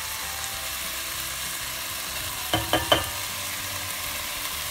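Soaked dried beans and garlic sizzling in hot oil in a pan while being stirred, with three quick knocks of the stirring spoon against the pan about two and a half seconds in.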